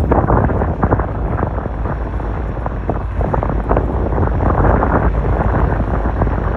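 Wind buffeting the microphone over the steady low rumble of an MBTA F40PH-3C diesel locomotive.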